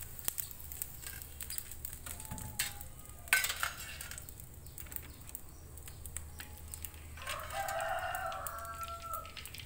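Hot oil crackling and sizzling as noodle crackers (kerupuk mie) fry, with a sharp metal clatter from the perforated skimmer a little over three seconds in. A rooster crows near the end, for about two seconds.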